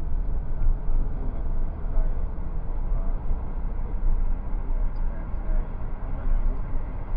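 Car engine and tyre road noise heard from inside the cabin while the car accelerates, a steady deep rumble with no distinct events.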